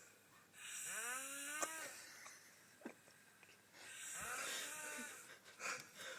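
A drunk woman snoring in her sleep: two long snores about three seconds apart, each carrying a tone that rises and then falls.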